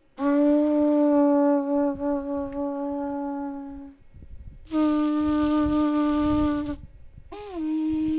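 A wind instrument blown in long single held notes at one low pitch: a blow of nearly four seconds, a break, a second of about two seconds, then a third that bends down into the same note near the end.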